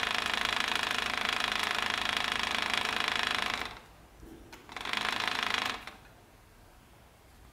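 Battery-powered vibration motor of a Fisher-Price baby bouncer buzzing steadily. It cuts off about three and a half seconds in, then buzzes again for about a second.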